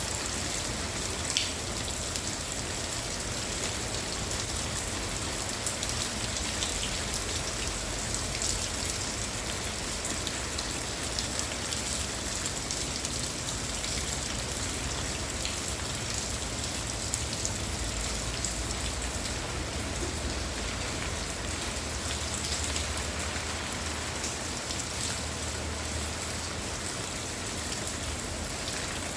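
Steady rain falling on a surface, an even hiss with scattered small clicks of drops and no thunder.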